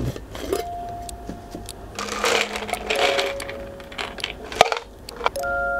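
A jar full of small plastic mechanical keyboard switches (KTT Grapefruit linears) clicking and rattling as it is opened and tipped so they slide against each other and the jar, busiest a couple of seconds in. A few short steady tones sound over it.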